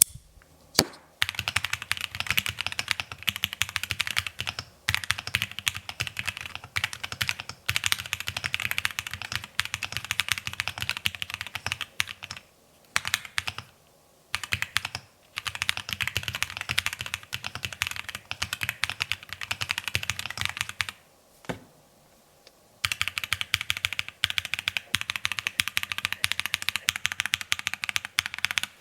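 Typing test on an M1W mechanical keyboard fitted with linear Piano switches: fast runs of keystrokes with a dull, deep sound, broken by short pauses and one longer pause about three quarters of the way through.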